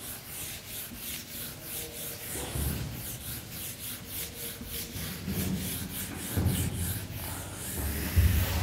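Felt whiteboard eraser rubbed briskly back and forth across a whiteboard, many quick swishing strokes, with a few dull low thuds against the board, the strongest near the end.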